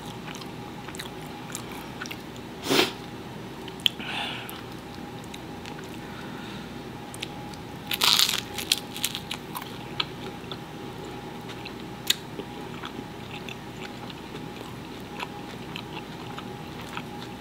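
A person biting into a slice of charred pizza crust, the loudest bite about eight seconds in, then chewing with small sharp mouth clicks.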